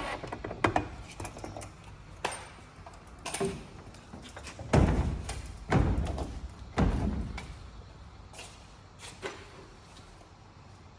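A greenhouse window being worked and shut: a few light clicks and knocks of its handle and fittings, then three heavy thuds about five, six and seven seconds in as it is pushed closed in its frame.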